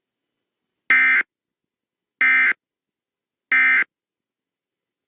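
Emergency Alert System end-of-message tones: three short, identical bursts of SAME digital data, each under half a second and about 1.3 seconds apart. They signal the end of the alert message, here a required monthly test.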